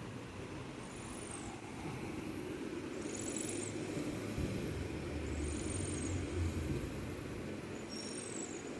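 A sleeping cat snoring: a faint, high, wheezy sound on each breath, four times, about every two and a half seconds, over a steady low rumble.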